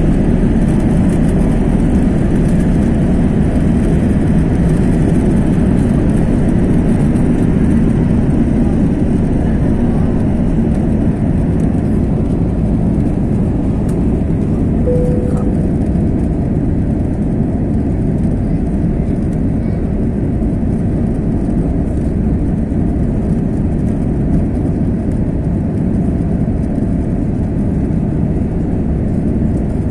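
Airliner jet engines at takeoff thrust, heard from inside the passenger cabin: a steady, loud rumble through the takeoff roll, lift-off and climb. A short single tone sounds about halfway through.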